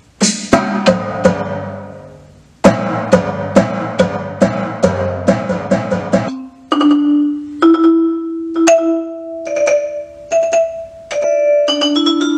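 An Alesis Command mesh electronic drum kit played with sticks through a preset where the pads trigger pitched, mallet-percussion-like notes. The first half is a run of struck notes that ring and fade. From about six seconds in come longer held notes that step between a few pitches, with strikes over them.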